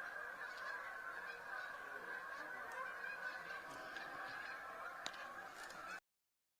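A large migrating flock of birds calling all at once: a dense, steady chorus of many overlapping calls that cuts off suddenly near the end.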